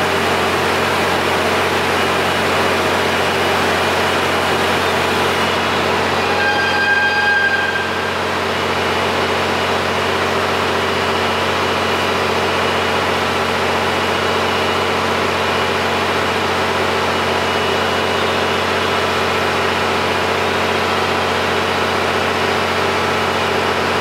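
Steady drone of an idling diesel train engine, with a brief higher pitched tone about seven seconds in.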